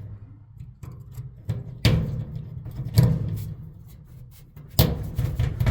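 A few sharp knocks and clunks, three of them about a second apart, as metal dryer parts and tools are handled during disassembly of the drum support wheels.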